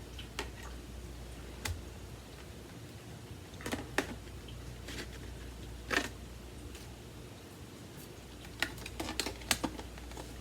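Light plastic clicks and knocks from the parts of a Samsung CycloneForce upright vacuum being handled and fitted, with a quick run of clicks near the end.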